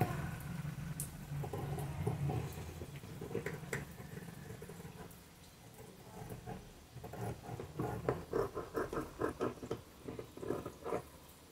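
Large tailor's scissors cutting through fusible buckram, a run of short snips at about three to four a second in the second half.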